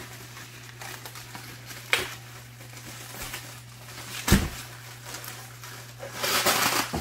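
Bubble wrap and plastic packaging crinkling as a wrapped tool is handled in a cardboard box, with a sharp knock about two seconds in, a heavier thump a little after four seconds, and a burst of louder crinkling near the end. A steady low hum runs underneath.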